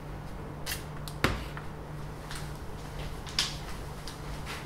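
A few light clicks and one sharper knock about a second in, from small hard objects being handled on a workbench, over a steady low hum.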